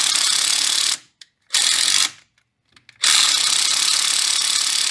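Cordless impact driver hammering on a tight strut bolt that holds the brake line bracket, in three bursts: one stopping about a second in, a short one a moment later, and a long one from about three seconds in. The bolt is being run back in and out to free it.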